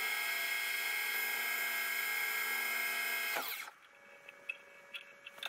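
Precision Matthews 1440TL metal lathe running with a steady multi-tone whine while taking a finishing cut on the outside of a spacer. About three and a half seconds in it is switched off and the whine falls away as the spindle winds down, followed by a few faint clicks.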